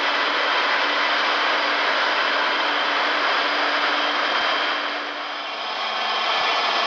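Class 101 electric locomotive standing in the station with its cooling blowers running: a loud, steady fan-like rush with a faint hum in it, easing slightly about five seconds in.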